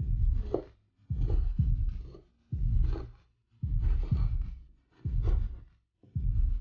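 Large kitchen knife chopping strips of peeled eggplant into cubes on a wooden cutting board: a dull thud with a sharp knock as the blade hits the board, about one cut a second, six in all.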